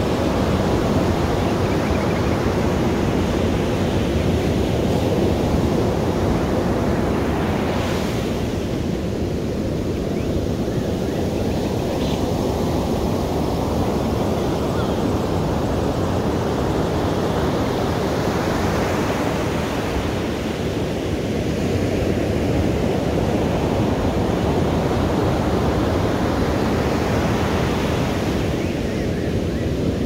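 Ocean surf: waves breaking and washing up a beach in a continuous wash that swells and falls back about every ten seconds.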